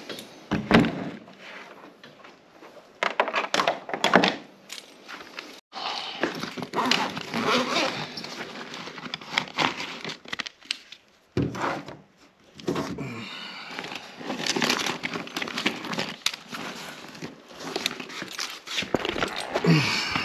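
Handling noise from work on the appliance and its cord: irregular knocks, clicks and rustling, with a sharp thunk about a second in and another near four seconds.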